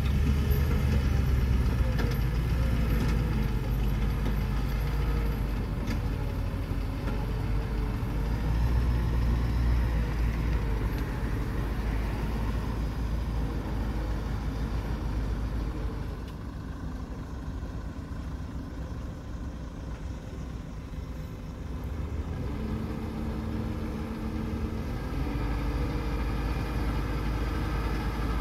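Loaded dump truck's diesel engine running as it drives and turns on soft ground, quieter for a few seconds in the middle, then running harder near the end as the tipper bed starts to lift.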